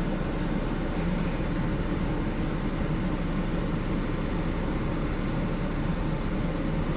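Steady low mechanical hum of a vehicle cab, unchanging throughout, with no other distinct sounds.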